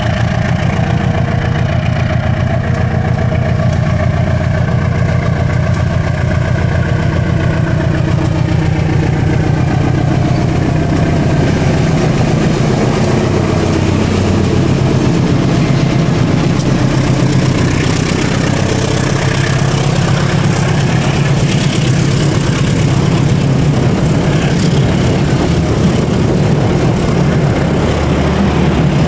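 GE-built CC 203 diesel-electric locomotive pulling away under full throttle, its diesel engine running loud and steady as it draws near and passes. In the second half this gives way to the rumble and clatter of the passenger coaches' wheels on the rails.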